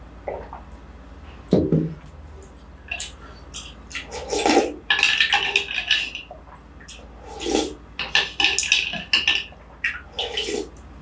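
A thump about a second and a half in, then spoon sounds in a bowl and several loud slurps of the iced coconut-milk dessert shwe yin aye off a spoon, in two bouts.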